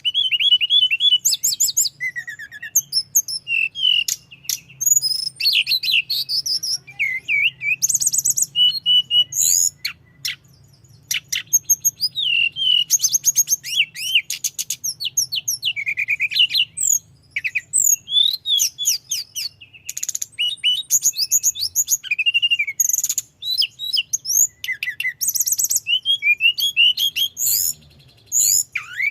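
Tledekan gunung songbird singing in a long unbroken run, a fast mix of high whistles, sweeping notes and rapid trills with only short gaps between phrases.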